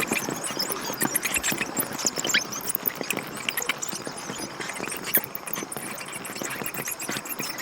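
A dense chatter of many short, high squeaks and chirps from a crowd of small animals calling at once.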